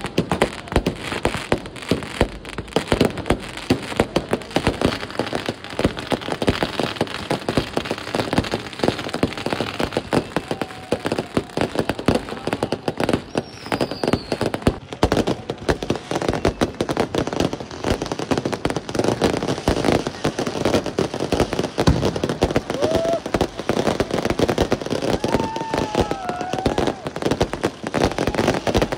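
Fireworks going off without pause: many overlapping bangs, pops and crackles from aerial shells and firecrackers bursting at once.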